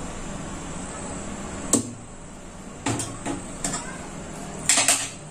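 Metal slotted spoon knocking against a cooking pot while rice is spread into it: about half a dozen sharp clinks, the loudest two close together near the end.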